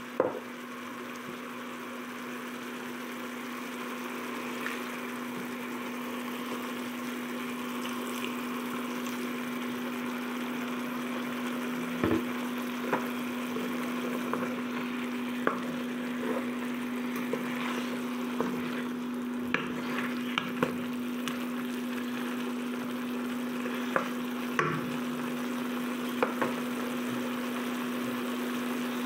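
Chicken, onions and chillies sizzling in a wok of adobo sauce. From about halfway through, a wooden spatula stirs and knocks against the pan a dozen or so times. A steady low hum runs underneath.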